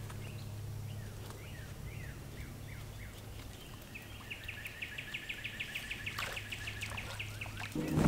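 Songbirds singing: a run of short falling whistled notes, then a fast even trill of about eight notes a second from about halfway through. Under them runs a steady low hum, and a louder noise starts just before the end.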